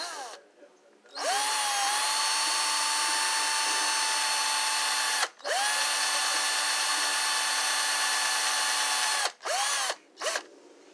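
Cordless drill boring a small hole through the plastic body of a toy train car. The motor whine spins up, runs steadily for about four seconds, stops briefly, runs again for about four seconds, then gives two short blips near the end.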